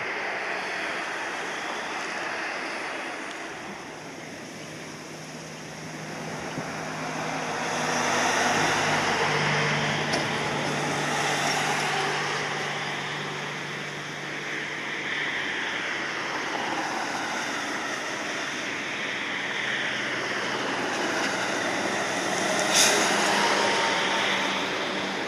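Jet engine noise from large four-engine freighters: a Boeing 747 on the runway, then an Ilyushin Il-76 passing overhead on approach, the sound swelling as it comes closer. A single sharp tick near the end.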